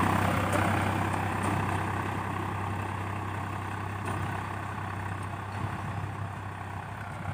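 Tractor engine running steadily while ploughing, growing gradually fainter.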